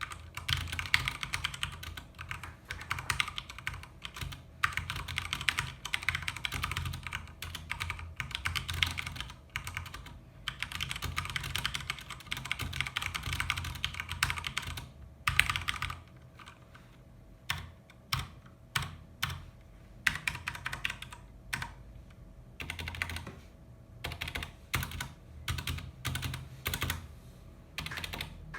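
Typing on an Akko x Ducky 3084 mechanical keyboard with Cherry MX Brown tactile switches: fast continuous runs of key clacks for about fifteen seconds, then slower, separate keystrokes and short bursts of typing.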